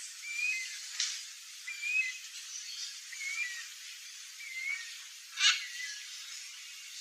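A small bird giving short, clear chirps, one about every second and a half, over a steady hiss. Two brief sharp rustling noises cut in, the louder one near the end.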